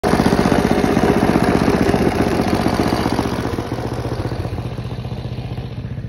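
Ariens snowblower's engine running with a fast, even firing beat, growing gradually quieter after about three seconds.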